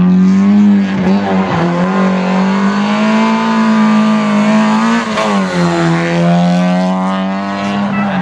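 Rally car engine running hard at high revs, the note held nearly steady with brief dips about one and one and a half seconds in and a longer drop around five seconds before it climbs again.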